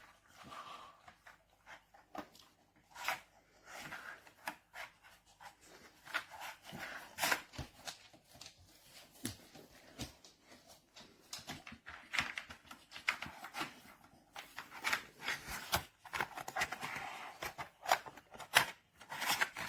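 Irregular clicks, taps and rustling of a dog working at a plastic puzzle feeder toy with its nose and paws.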